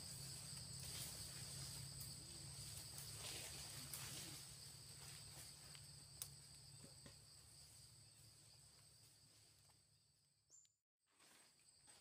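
Faint, steady insect chorus with two high, unwavering tones over a soft background hiss. It fades away and cuts to a brief silence near the end.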